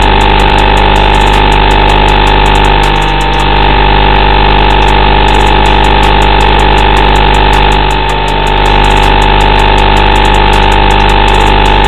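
Loud, steady electronic buzz and hiss with a strong fixed high tone. This is the audio channel of an analog FPV video link as recorded by the goggles' DVR while the drone sits disarmed, not motor noise. The level dips slightly about every five seconds.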